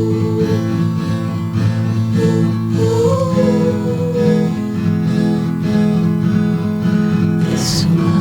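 Song music: acoustic guitar playing steady held chords under a slow melody line that bends between notes, with a short high hiss near the end.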